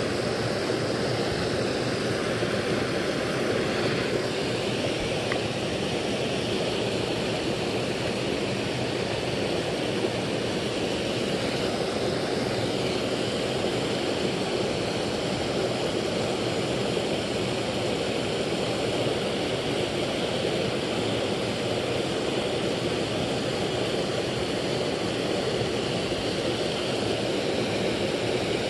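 Steady rushing of a small creek waterfall, water pouring over a jam of logs and branches into a pool.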